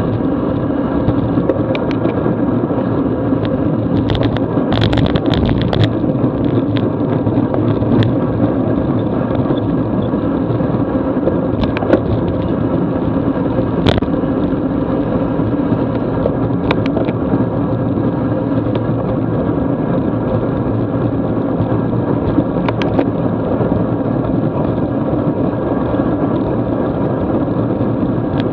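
Steady rush of wind and wet-road tyre noise on a camera mounted on a racing bicycle at about 20 mph, with scattered short clicks and knocks, several bunched together about four to six seconds in.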